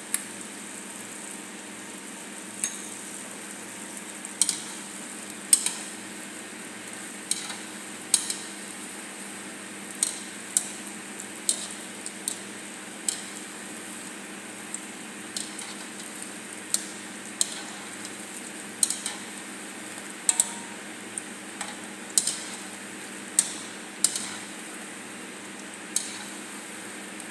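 Geimat dough balls frying in hot oil with a steady sizzle, and a utensil clicking sharply against the pot every second or two as they are stirred and turned.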